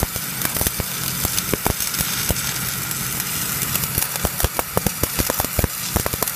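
Welding arc from a stick electrode clamped in a TIG torch with shielding gas flowing, sizzling steadily with frequent sharp pops and crackles of spatter, the pops coming more often in the second half. A steady low hum runs underneath.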